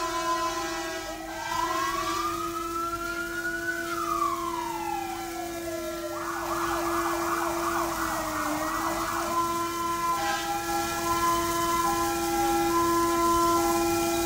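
Several fire engine sirens sounding together as a column of fire trucks arrives in emergency mode. One siren wails slowly up and down over a few seconds, then a fast yelp runs for about three seconds, and a two-tone hi-lo pattern follows near the end, all over steady held tones.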